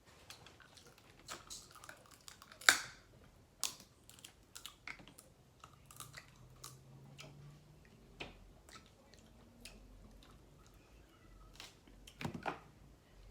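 Snow crab shells cracking and clicking, close up, as the legs are broken open and picked for meat, with some chewing. There are scattered sharp snaps, the loudest one a little under three seconds in and a quick run of them near the end.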